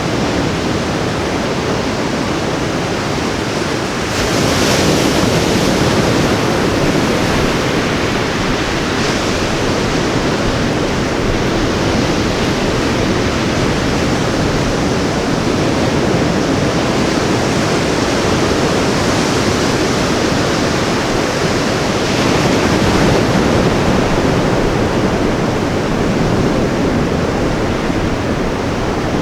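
Ocean surf washing onto a beach: a continuous rush of waves that swells louder about four seconds in and again near the twenty-two-second mark.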